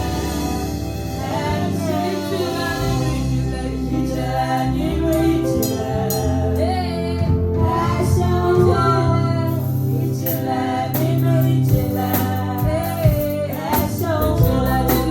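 Music: a voice singing with a wavering, sustained melody over accompaniment with a steady bass line, with sharp percussive hits becoming more frequent in the second half.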